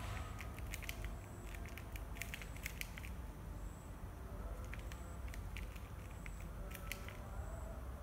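TV remote control buttons clicking in several short runs of quick presses, over a low steady hum.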